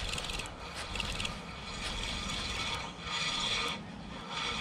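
Shimano Ultegra 1000 spinning reel being cranked, its gears and rotor giving a rough, scraping whir as a hooked trout is reeled in.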